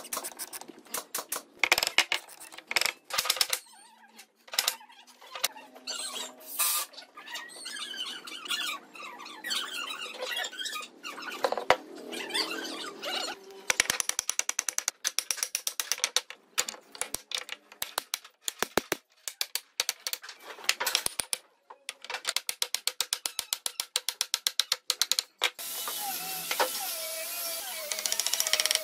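One-handed trigger bar clamps being tightened on a wooden frame: rapid runs of clicks as the trigger is pumped, mixed with squeaks and knocks of pine pieces being pushed and fitted together. A steady hiss comes in near the end.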